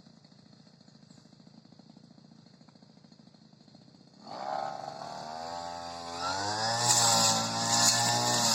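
Supra SPR328 two-stroke brush cutter engine idling faintly with a fast, even pulse, then throttled up about four seconds in, its pitch rising to a loud, high-revving run.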